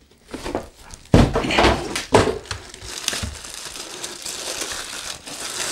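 Plastic bag crinkling and rustling as it is handled around a boxed subwoofer, with a sharp thump about a second in.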